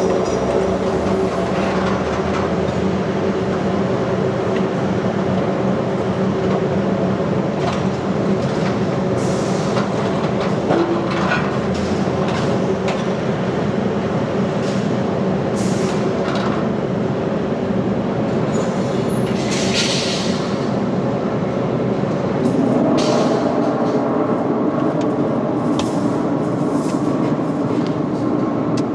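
Heavy machinery running steadily with a low hum and scattered clanks and knocks; the hum shifts higher and louder about two-thirds of the way through.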